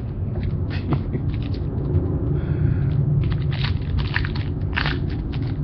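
Trading cards being flipped and handled, a scattered run of short clicks and rustles over a steady low hum.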